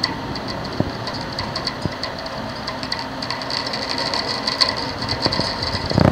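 Rain falling steadily as an even hiss, with irregular sharp ticks of drops striking a hard surface; the ticking thickens a little past the middle.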